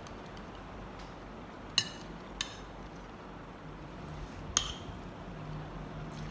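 A metal spoon clinking against a glass plate while scooping food: three sharp, ringing taps, under two seconds in, about half a second later, and again past four and a half seconds, the first and last the loudest.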